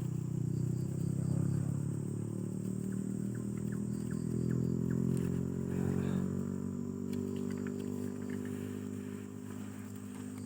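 An engine running steadily, easing off and fading somewhat near the end.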